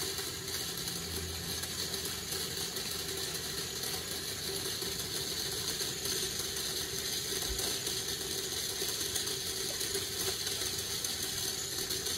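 Electric in-tank fuel pump of a 2020 Ford F250 fuel pump assembly running steadily on 12 volts, submerged in gasoline: a pretty quiet, even hum with one held tone. It is pumping air out of the line before building pressure.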